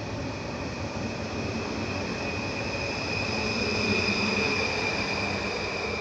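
PKP Intercity Stadler FLIRT electric multiple unit pulling out past the platform: a rolling rumble with a steady high whine, loudest about four seconds in as the rear of the train goes by, then easing off.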